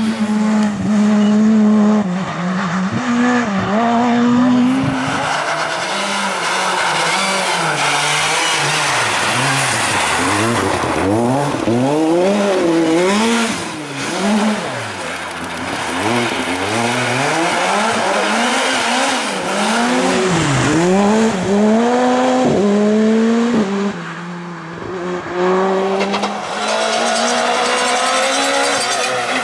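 Rally car engines revving hard through a special stage, the pitch climbing and dropping again and again with gear changes and throttle lifts.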